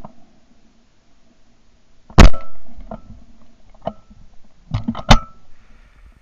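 A single loud shot from a Beretta Silver Pigeon 20-bore over-and-under shotgun about two seconds in, followed by a ringing tail. Several quieter bangs follow, including a quick pair near the end.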